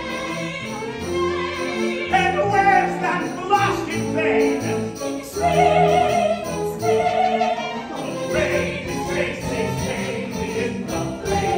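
Singers and a pit orchestra performing a lively show tune live on stage, heard from the audience seats.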